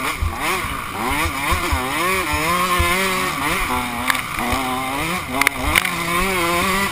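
Off-road dirt bike engine revving up and down with the throttle as it is ridden over a rough trail, its pitch rising and falling every second or so. Irregular low buffeting from the helmet-mounted microphone runs underneath.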